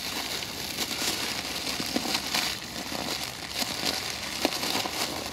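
Thin plastic food bag crinkling and rustling with irregular crackles as hands twist and knot it shut.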